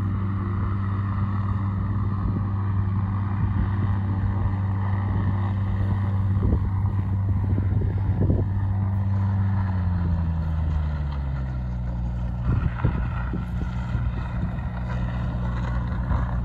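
Light aircraft's piston engine on a Just Aircraft SuperSTOL floatplane running steadily, then slowing about ten seconds in, its pitch gliding down and holding at the lower speed. A few brief knocks sound over it.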